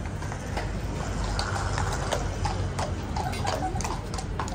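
Household Cavalry horses' shod hooves clip-clopping on cobbles, irregular sharp knocks over a low background rumble.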